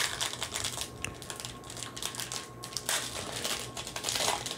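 Foil wrapper of a trading-card pack crinkling as it is handled and torn open, the crackling loudest near the end.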